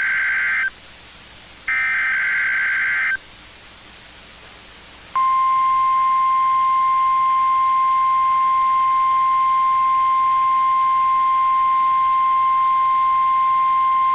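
NOAA Weather Radio Specific Area Message Encoding (SAME) header: the end of one digital data burst and then another of about a second and a half. After a gap of about two seconds comes the steady 1050 Hz warning alarm attention tone, held for about nine seconds until it cuts off. These attention signals trigger special weather-alert receivers; here they are part of a weekly test.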